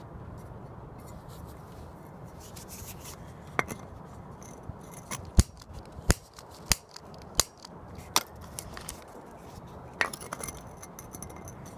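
A series of about eight sharp, irregular clicks, the loudest about five seconds in, from a long-nosed utility lighter being clicked, over a steady low outdoor background noise.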